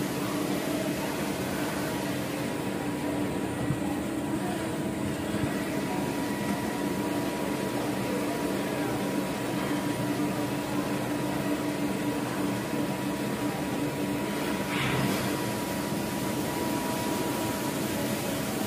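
Steady hum of CNC shop machinery with a few constant tones, and a short click about fifteen seconds in.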